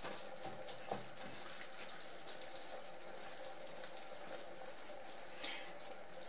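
Ground-beef picadillo with green peas simmering in a nonstick frying pan, a faint steady hiss, while a silicone spatula stirs it with a few soft scrapes and knocks. A faint steady hum lies under it.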